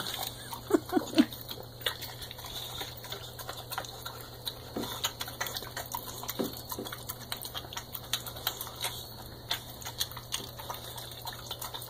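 A boxer dog eating meat and gravy from a plastic plate: wet chewing and lip-smacking, heard as a run of irregular small clicks. A few short pitched vocal sounds come about a second in.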